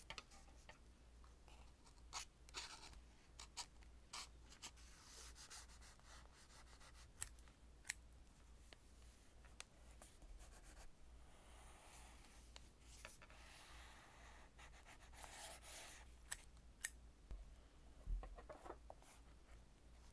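Thin paper tape being laid along notebook pages and trimmed with a craft knife: faint rustling and scratching on paper, with a few sharp little clicks and taps.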